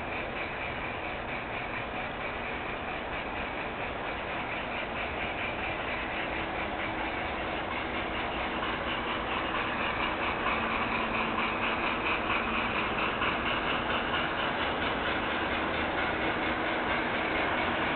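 G-scale model train running along garden track: a steady motor and wheel noise with a fast, even ripple. It gets a little louder about halfway through.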